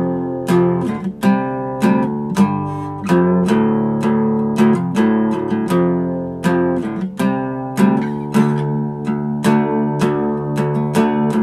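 Guitar music: chords strummed in a steady rhythm.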